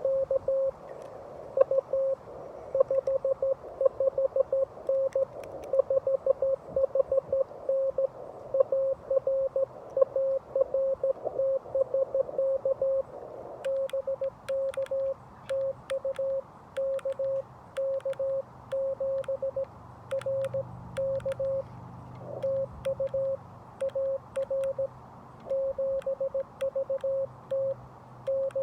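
Morse code (CW) tone of about 550 Hz from a Xiegu G90 HF transceiver, keyed in dots and dashes. For roughly the first half it is faster Morse in a hiss of band noise, the other station being received. From about halfway it is slower keying with a sharp paddle click on each element, the operator sending by hand and hearing his sidetone.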